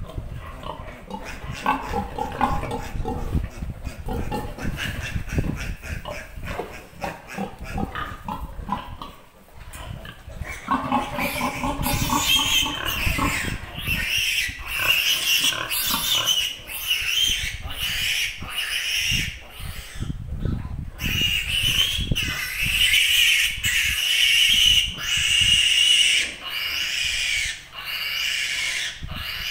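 Piglet squealing over and over as it is caught and held, a loud distress protest at being handled; the calls turn shriller and louder about eleven seconds in.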